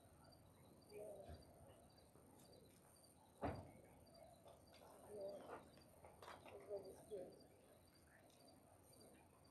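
Near silence outdoors: faint insect chirping in a steady, even rhythm, with a single knock about three and a half seconds in.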